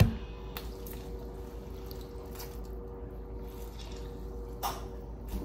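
A lemon being squeezed by hand, its juice dripping into the hummus mix with a few faint squelches and drips, over a steady faint hum. A short knock comes right at the start.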